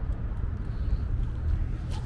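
Wind buffeting a small camera's microphone on a moving bicycle, a fluctuating low rumble, over street traffic noise.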